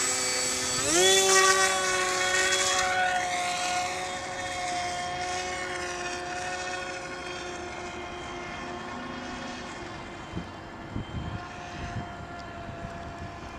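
Scratch-built model airplane's motor and propeller run at full throttle for a hand launch. The whine jumps up in pitch about a second in, then holds steady and grows gradually fainter as the plane flies off. A few soft knocks come near the end.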